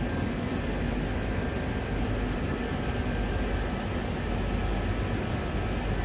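Panasonic FSV VRF outdoor condensing units (U-20ME1H8) running after cutting in, a steady airy fan noise over a low hum.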